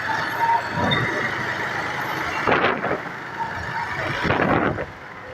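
Riding noise from a moving motorcycle in town traffic: wind and road noise on the helmet-mounted motovlogging mic, swelling every couple of seconds, with the bike's engine running underneath. A few short high tones from traffic sound in the background.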